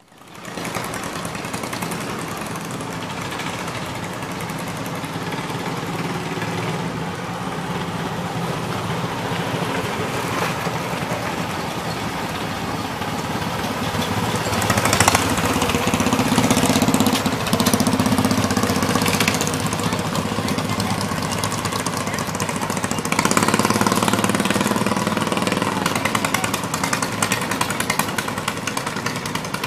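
Small engines of miniature replica race trucks running with a rapid, rattling beat, growing louder as a truck passes close about 15 s in and again about 23 s in.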